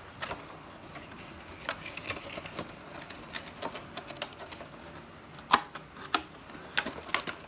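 Cellophane wrapping and a cardboard model-kit box being handled and opened: irregular crinkles and sharp clicks, with a louder snap about five and a half seconds in.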